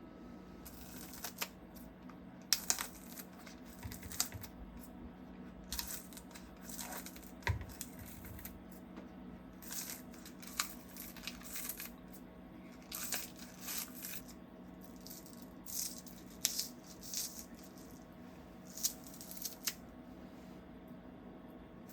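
Intermittent crinkling, rustling and light clicks of handling in a kitchen, in short bursts every second or so, over a steady low hum.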